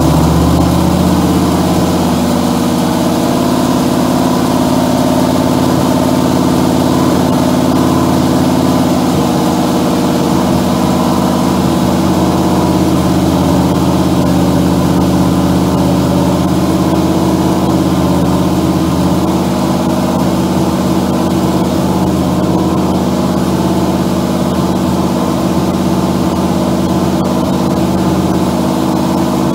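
1963 Oldsmobile Jetfire's turbocharged 215 cubic-inch aluminium V8 running steadily just after starting, on its new camshaft's break-in run.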